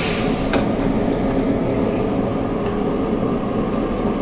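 Rice noodles stir-frying in a steel wok: a steady roar under a sizzle, with one short clink of the ladle about half a second in.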